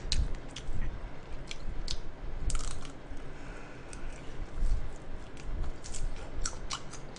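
Close-miked eating sounds: biting food off a skewer and chewing, with scattered sharp crunching clicks.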